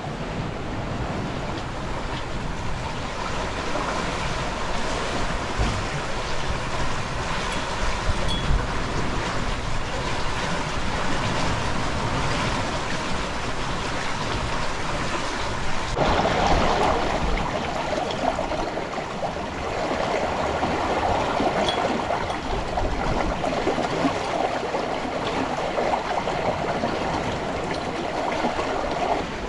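Water rushing and splashing along the hull and in the stern wake of a sailboat under way downwind. It shifts abruptly about halfway through, to a brighter, busier wash.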